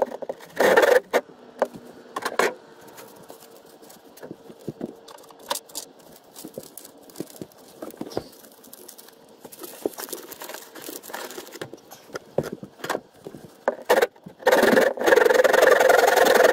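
Scattered knocks, taps and scrapes of tools and timber being handled, then near the end a handsaw starts cutting through a pine upright with fast continuous strokes, the loudest sound here.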